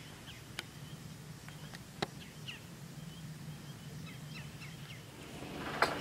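Faint, short bird chirps over a low steady background hum, with a couple of sharp clicks. Just before the end, a metal clatter starts as a steel cattle panel is handled.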